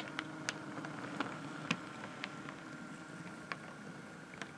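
Accurascale OO gauge class 37 model locomotive running slowly over set-track points: a faint steady motor hum with scattered light clicks of the wheels on the rails. A sharp small knock right at the start is the wheel flange hitting the front of the plastic frog, the sign of wheel back-to-back settings that don't suit Hornby set-track points.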